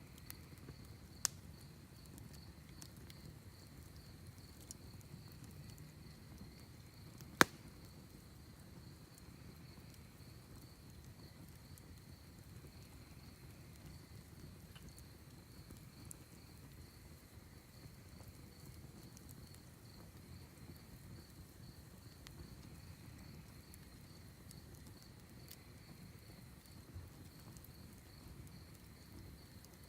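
Wood fire in a fire pit with a few sharp crackling pops, the loudest about seven seconds in, over a steady pulsing chorus of crickets.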